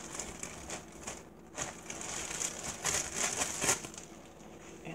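Clear plastic oven cooking bag crinkling and rustling as it is handled, in irregular crackles.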